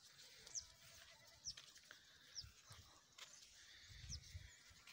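Near silence: faint outdoor ambience with a few short, high, falling chirps about a second apart and a soft low rumble about four seconds in.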